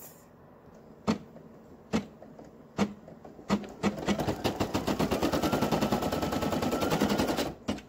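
Brother PE800 embroidery machine sewing the placement stitch for an applique piece. Four slow single needle strokes come about a second apart, then a rapid, even run of stitching with a faint motor whine lasts about four seconds and stops near the end.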